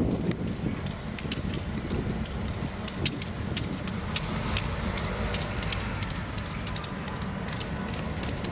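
EMD SD9 diesel locomotive rolling slowly with a train. Its 16-cylinder two-stroke engine gives a low, steady rumble under a run of sharp, irregular clicks and clacks from the wheels on the rail, about two to four a second.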